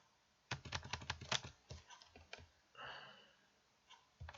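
Computer keyboard clicks: a quick run of about a dozen in the first second and a half, then a few scattered ones, with a short soft hiss about three seconds in.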